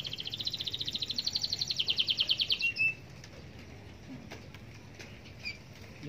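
Caged canary singing a fast trill of repeated high notes for nearly three seconds, ending on a short note, followed by a few faint chirps.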